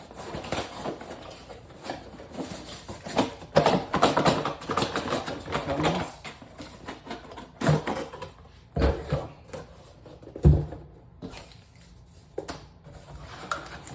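Cardboard box and packaging being handled and rustled as parts are taken out, with scattered clicks and two sharp knocks about nine and ten and a half seconds in.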